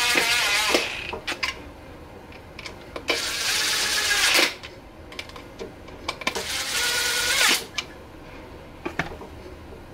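DeWalt cordless impact driver running in three short bursts of about a second each, driving screws into a sea scooter's plastic housing, its motor whine falling away as each burst ends. Light clicks of small parts being handled come between the bursts.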